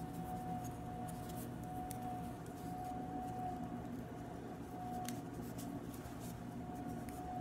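Quiet room tone: a steady low hum with a faint constant high tone, broken by a few faint small clicks.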